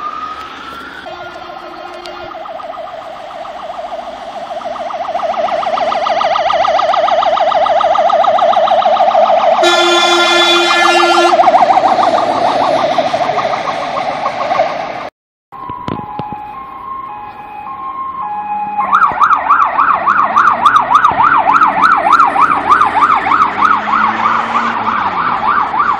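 Sirens of fire engines passing one after another: a fast yelp siren swells to its loudest with a horn blast of about two seconds at its peak. After a brief cut, a two-tone hi-lo siren alternates for a few seconds, then a second fast yelp siren takes over, loud and steady.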